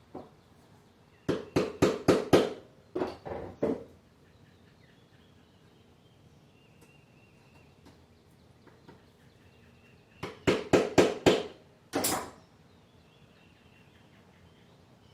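Quick runs of sharp scraping knocks, about four a second, from working the stub of a sheared mower blade bolt loose in the crankshaft: one run of strokes in two short bursts, a pause, then a second run ending in one longer stroke.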